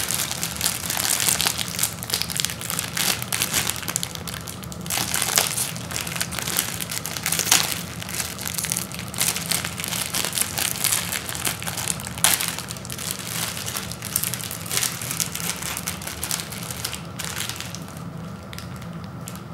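Plastic ramen noodle packet crinkling and crackling as it is twisted and torn open by hand, with many sharp crackles. The crinkling thins out near the end.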